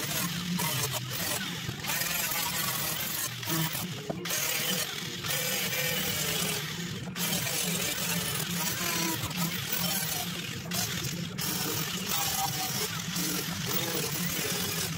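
Small electric angle grinder running against a rusted steel floor pan, grinding off rust, with several brief drops in the noise.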